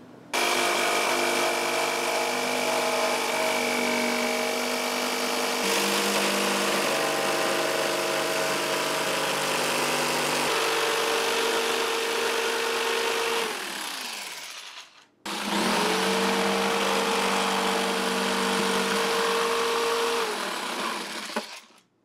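Electric jigsaw cutting through a plastic cooler lid. It runs steadily for about thirteen seconds, winds down to a stop, then starts again a second later and cuts for about five more seconds before winding down.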